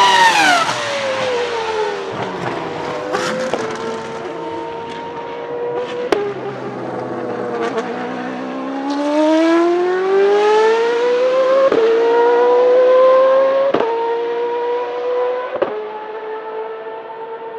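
Toro Rosso STR1 Formula 1 car's Cosworth 3.0 V10 passing at high revs, its pitch dropping sharply as it goes by. Then a single-seater race car engine holds a steadier note before accelerating hard, its pitch climbing through three quick upshifts.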